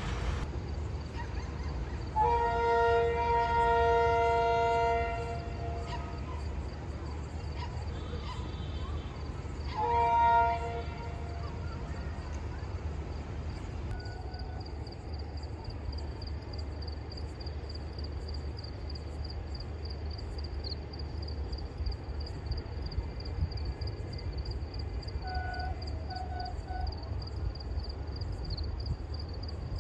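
Train horn sounding a long blast of about three seconds, then a short blast about five seconds later, over a steady low rumble.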